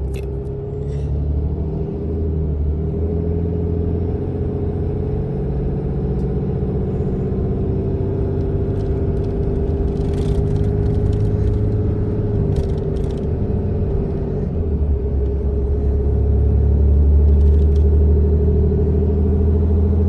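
Diesel pickup truck's engine running as the truck moves, heard from inside the cab: a steady drone with a low rumble that grows louder about three-quarters of the way through.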